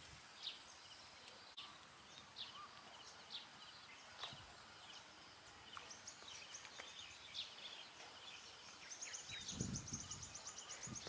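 Faint outdoor ambience with scattered short bird chirps. Near the end comes a fast, high trill along with a low rustle of grass and weeds.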